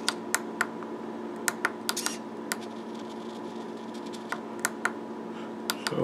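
Small tactile push buttons clicked one press at a time, about a dozen sharp clicks at irregular spacing in bursts, over a faint steady hum.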